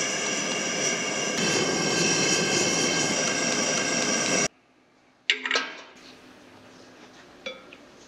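Gas forge burner and blower running with a steady, loud noise and a whine of several tones, which cuts off abruptly about four and a half seconds in. A moment later comes a single sharp metal clank that rings briefly.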